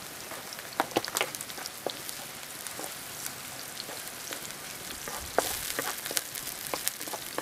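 Chopped onions sizzling in oil in a black frying pan, with scattered pops. A wooden spatula stirs them in the second half, and the sizzle is briefly louder a little past halfway.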